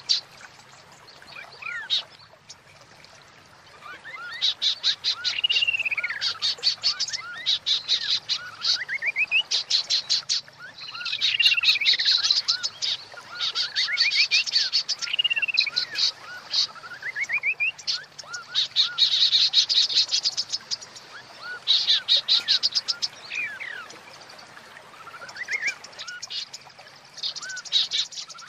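Female white-rumped shama (murai batu) calling: fast rattling chatters, each a second or two long, alternating with short whistles that rise and fall. Bird keepers play this female call to bring male shamas into breeding condition.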